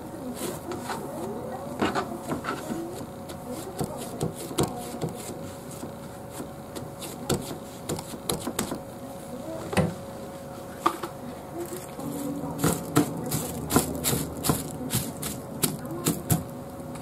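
Hands pressing and patting bread dough on a plastic cutting board to knock the air out, with scattered soft taps and slaps. Near the end, plastic cling film crinkles as it is spread over the dough. A steady faint hum runs underneath.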